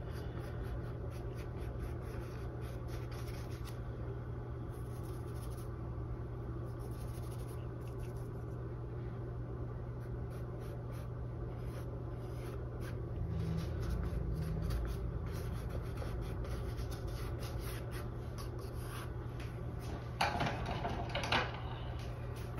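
Paintbrush loaded with acrylic paint rubbing and scratching in strokes across a stretched canvas, over a steady low hum. Near the end come two brief louder noises.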